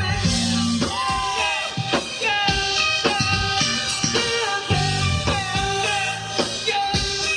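Music: a song with a singing voice over a band with drums.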